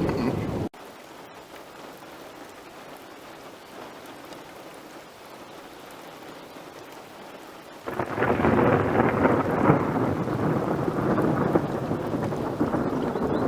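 Thunder rumbling, cut off suddenly less than a second in, leaving a faint steady hiss of rain. About eight seconds in, a new long peal of thunder starts abruptly and rolls on.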